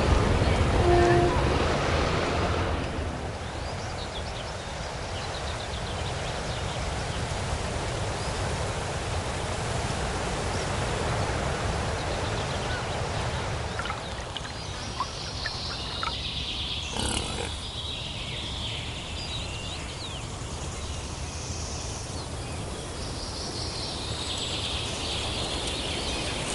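Outdoor ambience: a low rumble fades out in the first few seconds, leaving a steady background hiss with birds calling. The birdsong rises in a burst about halfway through and again near the end.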